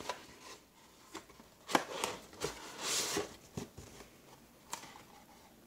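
Cardboard trading-card booster box being handled: a handful of light knocks and taps, with a short scraping rustle of cardboard sliding about halfway through.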